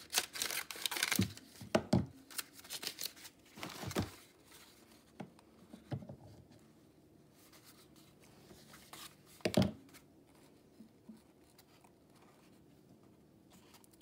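A stiff roll of pianola paper rustling and crackling as it is handled and unrolled, mostly in the first few seconds. A single sharp knock comes about two-thirds of the way through.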